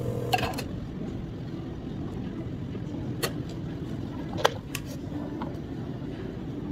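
Steady low background rumble with a few sharp plastic clicks and taps as iced drink cups are handled on a counter and a dome lid is pressed on, the loudest about four and a half seconds in.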